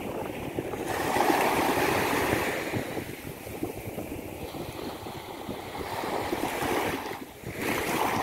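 Sea waves breaking and washing up on a beach: the surf swells about a second in, eases off, and dips briefly near the end before building again.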